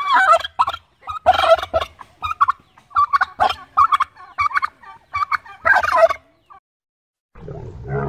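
Domestic turkey tom in display, gobbling many times in quick succession for about six seconds. After a short gap near the end, a camel's low, drawn-out call begins.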